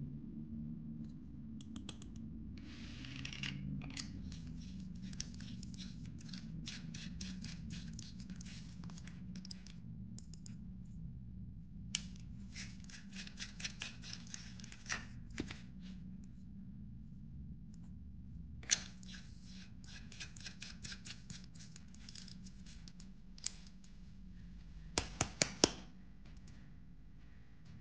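Hands handling an LED bulb and screwing its metal screw base into a plastic lamp socket adapter: bursts of rapid scratchy clicking and scraping, with a few louder sharp clicks near the end.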